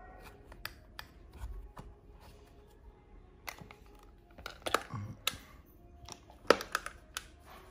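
Irregular small clicks and taps from a Zippo lighter being handled, with its metal case knocking lightly. There is a flurry of clicks about five seconds in and a sharper click about a second later.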